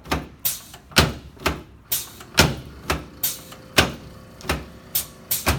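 Chiropractic adjusting of the clavicles and front ribs on a treatment table: a quick series of about a dozen sharp knocks, roughly two a second.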